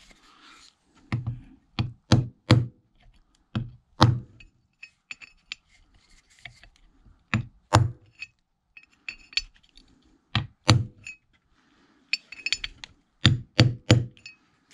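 A soft-blow hammer taps a socket held over a valve, driving it into the seat of a Massey Ferguson 35X fuel lift pump body. There are about fifteen sharp knocks in irregular clusters of two or three, some with a short metallic ring, and lighter clinks of metal between them.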